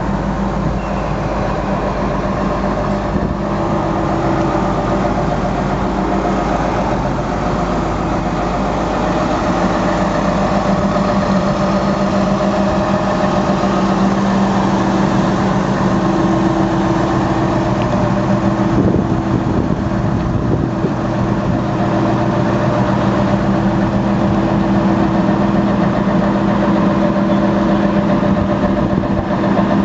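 Liebherr LRB125 piling rig's diesel engine idling steadily, growing slightly louder toward the end.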